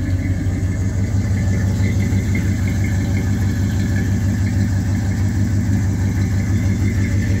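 1978 Chevy C10's 350 small-block V8 idling steadily through its dual exhaust, soon after its first start of the day, with no funny noises.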